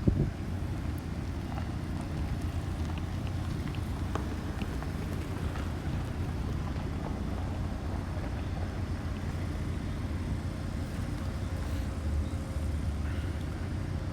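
Steady low rumble of street traffic and construction machinery, with wind on the microphone, after a brief louder burst at the very start.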